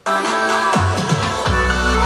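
Electronic music played through a soundbar and subwoofer, starting abruptly, with a steady deep bass line coming in about halfway through.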